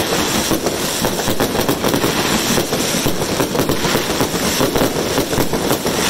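Fireworks barrage: aerial shells bursting overhead in a dense, unbroken run of crackles and pops, steady in loudness throughout.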